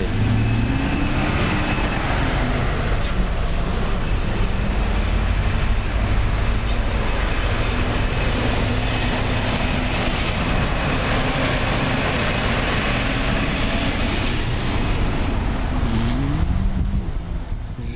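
Motor vehicle engines running with steady traffic-like noise, one engine note rising near the end.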